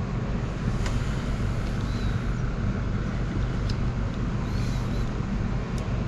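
A steady low hum and rumble of background noise, with a couple of faint short clicks about a second in and near the end.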